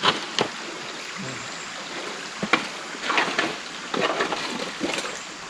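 Running creek water over slate with scattered footsteps clicking and scraping on the bare rock, in several short clusters.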